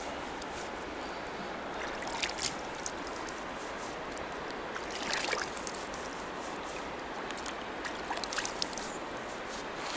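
Shallow river running over a stony bed, with a few splashes and dribbles as handfuls of cold river water are scooped up and poured over a head of hair.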